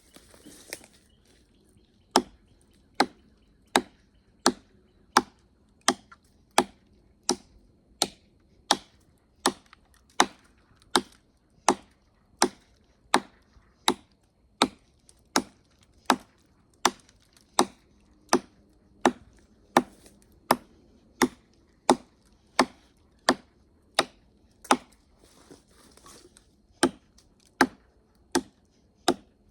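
Very Good Knife Co Eagle, a broad seax-style fixed-blade knife, chopping into a pine limb about 4 inches thick: sharp blade-on-wood strikes in a steady rhythm, a little over one a second, beginning about two seconds in.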